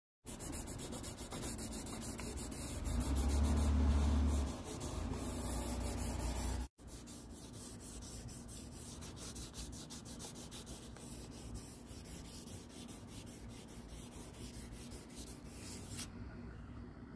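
800-grit sandpaper rubbed by hand over a hazy plastic headlight lens in rapid, even strokes, a gritty scratching from sanding the dulled surface. The first stretch is louder, with a low rumble partway through. After a brief break, the rubbing goes on quieter and steadier.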